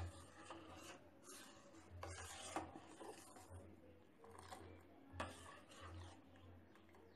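Faint, irregular scraping strokes of a spoon stirring hot milk around a stainless steel saucepan, rubbing against the pan's bottom and sides as the milk is curdled with lemon juice into chhena.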